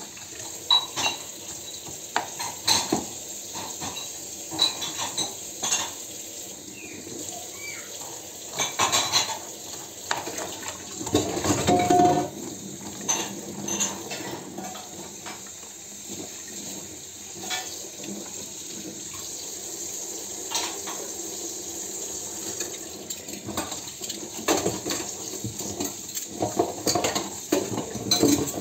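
Kitchen knife cutting an onion on a cutting board: irregular knocks and taps of the blade against the board, with a louder stretch of clatter about twelve seconds in.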